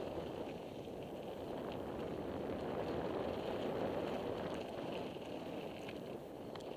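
Wind buffeting a helmet-mounted camera's microphone and bicycle tyres rolling over a dirt trail, a steady rushing rumble with small scattered clicks and rattles.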